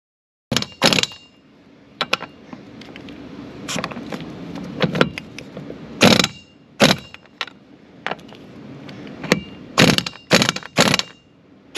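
Irregular sharp metallic clanks and clicks, a dozen or so, with a faint steady noise between them, starting about half a second in.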